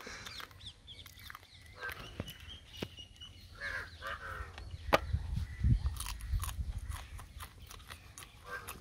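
Close-up eating sounds of a man eating cooked crab by hand: chewing, sucking meat from the pieces and wet smacking, with scattered short clicks. A low rumble comes in about halfway through for a couple of seconds.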